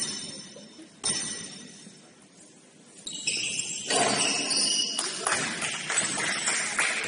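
Basketball game in a gym: two sharp knocks about a second apart, each leaving a brief ringing tone, then from about three seconds in a louder, busier stretch of court noise with more knocks and short squeaky tones.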